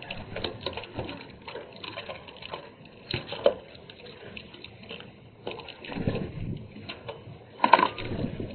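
Grey treepies drinking and splashing at a plastic water bowl: irregular beak taps and water sloshing, with a louder flurry about three seconds in and another near the end as a bird flaps up.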